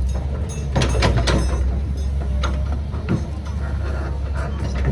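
Heavy diesel engine running with a steady low drone, with irregular knocks and clatter of rock, typical of an excavator digging limestone.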